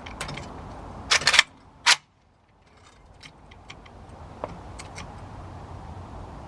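Sharp clicks from a camera being handled: a quick cluster about a second in and one more just before two seconds. The sound then drops out briefly before a steady background hiss slowly returns.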